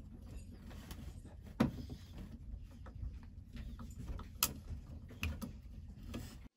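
Insulated screwdriver turning a screw into a metal outlet box cover. Faint handling noise, with a few sharp metal clicks and scrapes; the loudest comes about one and a half seconds in.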